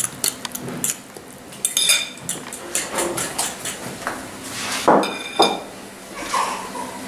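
A utensil clicking against a glass mixing bowl as egg and pasta are stirred, then clanks and ringing clinks of metal cookware being handled on a gas hob, the loudest about five seconds in.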